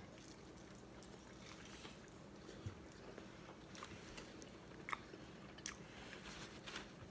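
Quiet chewing of a birria egg roll, with a few faint, sharp mouth clicks scattered through it.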